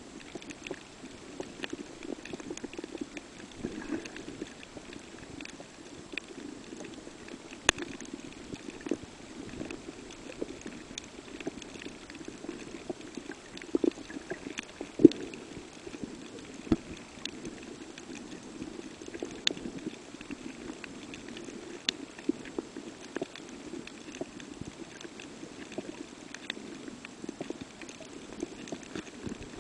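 Underwater ambience picked up by a diving camera: a steady muffled low rumble with scattered sharp clicks and pops, the loudest about halfway through.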